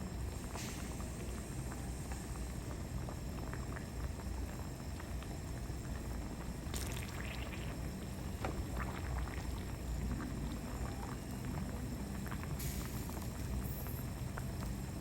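Raw Sabah bananas frying in hot cooking oil, sizzling with scattered small crackles and pops over a steady low hum.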